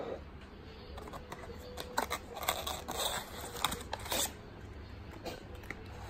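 Paper packaging crinkling and rustling as a paper-wrapped pack of egg rolls is pulled out of its gift box, a cluster of crackles between about one and four seconds in.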